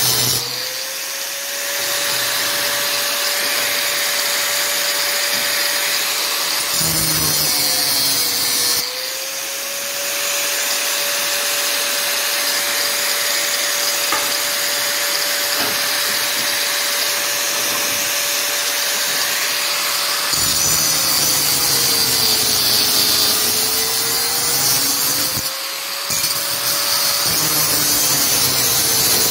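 Bosch angle grinder cutting into a Harley Sportster exhaust pipe to remove the crossover pipe stub. Its motor whine holds steady and sags in pitch a few times as the disc bites into the metal, over a continuous grinding rasp.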